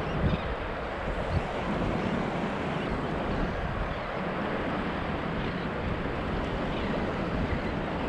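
Steady wash of gulf surf around a wading angler, with wind buffeting the microphone.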